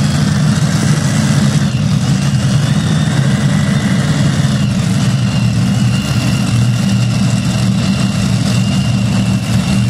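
Competition pulling tractor's engine running steadily at a low, even rumble, not under full pull.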